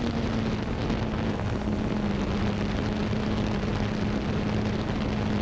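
Xiro Xplorer G quadcopter's motors and propellers running with a steady hum, picked up by the GoPro on board, over a wash of propeller and wind noise.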